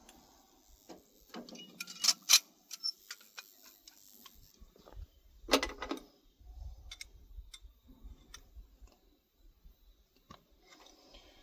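Scattered light clicks and metal taps of pump parts and tools being handled during reassembly, with two sharp knocks about two seconds in and a louder clatter near the middle.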